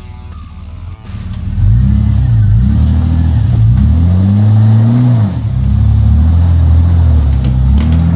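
Jeep Cherokee XJ engine revving up and down as it crawls over rocks. It gets loud about a second and a half in, and its pitch rises and falls in repeated surges. There is a crunch near the end.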